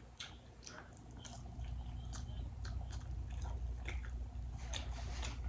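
Close-miked chewing of food, with irregular wet mouth clicks and smacks. A low rumble underneath grows louder about a second and a half in.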